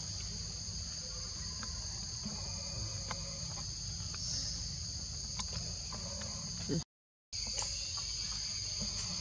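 Steady high-pitched chorus of insects in the forest over a low rumble, with a few faint ticks. It cuts out completely for about half a second, two-thirds of the way through, then carries on unchanged.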